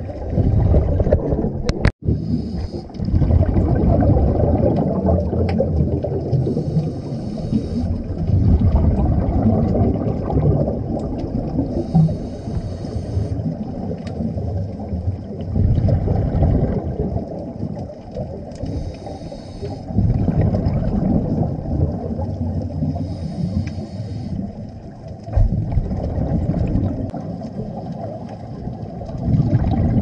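Scuba diving heard underwater: a dense low bubbling from exhaled air, with a regulator hiss about every five seconds, in the rhythm of a diver's breathing.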